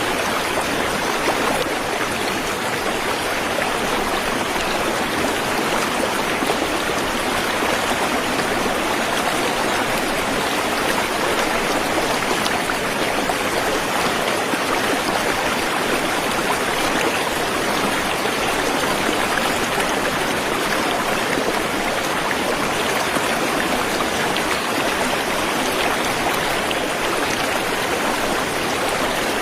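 Waterfall rushing steadily, a constant even splash of falling water with no pauses.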